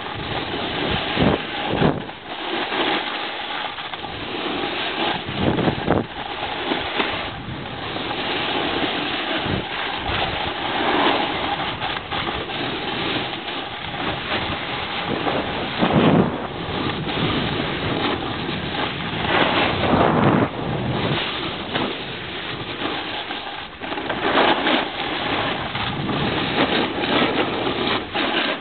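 Wind buffeting a moving camera's microphone while sliding down a ski slope, mixed with the rough hiss of sliding over snow, rising and falling in uneven surges.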